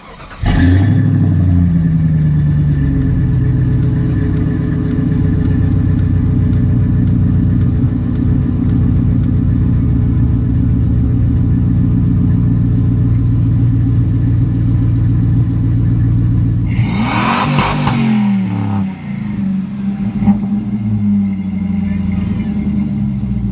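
Jeep V8 engine starting about half a second in and settling into a steady idle. Around two thirds of the way through the throttle is blipped once, the revs rising and falling, before it returns to idle. This is a test fire after new coil packs and spark plugs were fitted to cure a misfire on cylinder 3.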